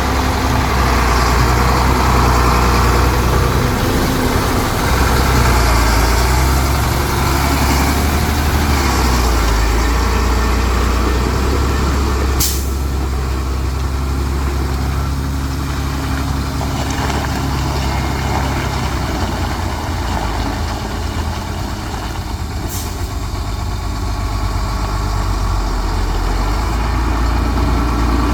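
Heavy diesel engines of earthmoving machines running steadily. Two short, sharp high-pitched sounds cut through, about 12 and 23 seconds in.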